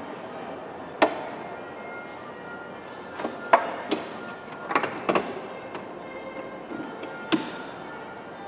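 Sharp plastic clicks, about six spread out, the loudest about a second in, as a wiring harness's clips are snapped into the holes of a car door's inner panel by hand. Faint music plays underneath.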